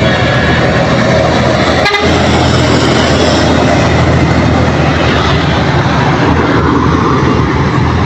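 A truck on the highway sounding its horn, over loud engine and road noise that runs steadily throughout.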